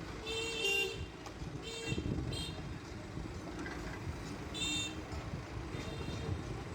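Diesel engine of a Case 770 EX backhoe loader running steadily, with five short horn toots over it.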